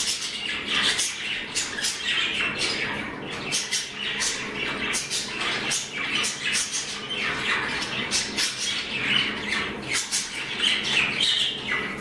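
Young budgerigars chattering: a rapid, unbroken run of short chirps and squawks.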